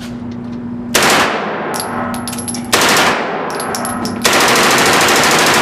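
Fully automatic gunfire: a short burst about a second in, another near three seconds, then a longer burst of rapid shots from about four seconds in.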